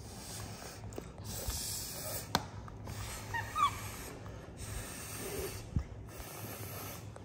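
Repeated breathy puffs of air from a man eating a hot piece of steamed pumpkin, with a few faint short squeaks from a baby monkey a little over three seconds in and a single light click.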